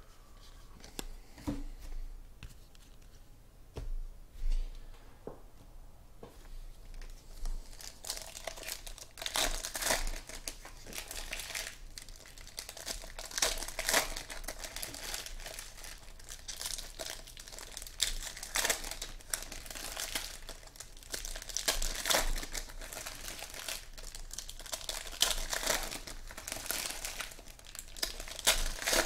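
Foil wrappers of 2014 Panini Contenders football card packs crinkling and tearing as the packs are ripped open by hand, the crackling sparse at first and busy from about eight seconds in.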